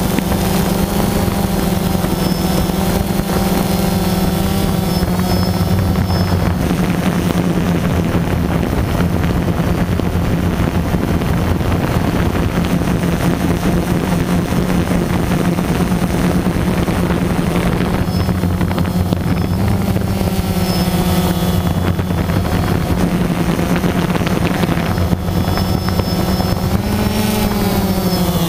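DJI Phantom 2 quadcopter's electric motors and propellers humming steadily in flight, heard from its onboard camera. The pitch wavers a little throughout, and near the end it rises and then falls back as the drone manoeuvres.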